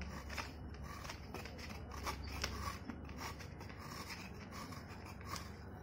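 A block of jaggery being shaved against the fixed iron blade of an aruvamanai (floor-mounted curved kitchen blade): quiet, repeated scraping strokes, roughly two to three a second, as flakes come off.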